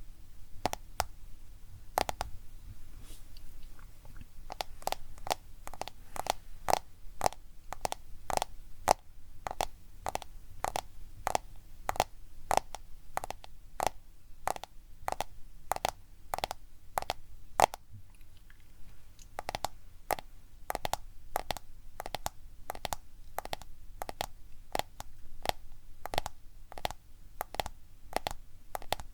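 Tapping on a smartphone, sharp taps at about two a second, with a pause of about two seconds near the start.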